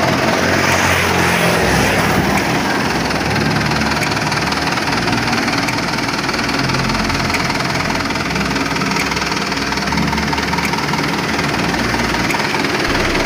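Mitsubishi light dump truck's diesel engine idling steadily.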